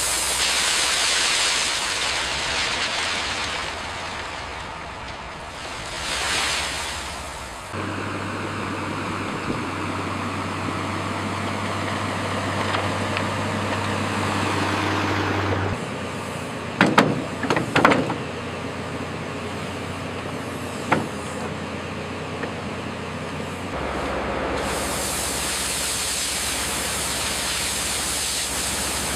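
Heavy road-construction machinery at work: diesel engines running with hissing whooshes, a steady engine drone in the middle, and a few sharp metallic clanks about two-thirds of the way through.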